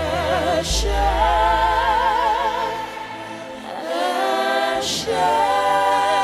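Gospel worship singing: several voices sing a slow song in two long, held phrases with wavering notes, over a low, steady bass from the band.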